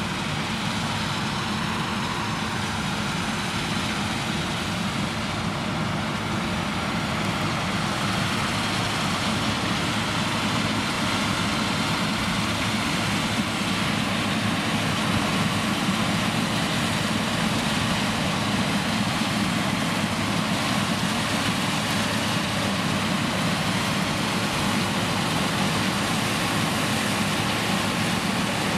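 Claas Lexion 560 combine harvester running under load while threshing soybeans: a steady engine and threshing-drum drone mixed with the hiss of the header cutting the crop. It grows slightly louder as the machine comes closer.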